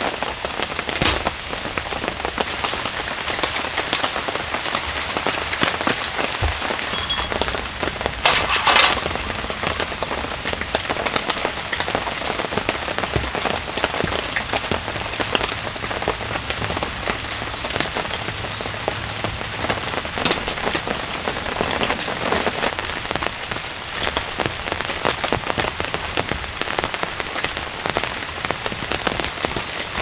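Heavy rain falling steadily on a camp tarp and the forest leaves. A few sharp clicks and clinks of camp gear being handled stand out about a second in and again around seven to nine seconds in.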